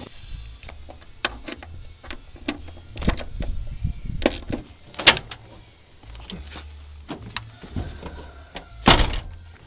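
Irregular metal knocks, clicks and clunks from hand work on a pickup truck's door and hinge, with a louder clunk about five seconds in and the loudest near the end.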